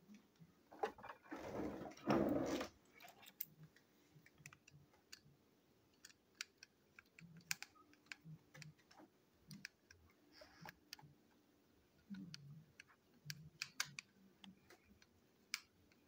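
Plastic Thomas & Friends Percy toy engine being picked up and handled: two short, louder rustles in the first few seconds, then scattered light clicks and taps of hard plastic.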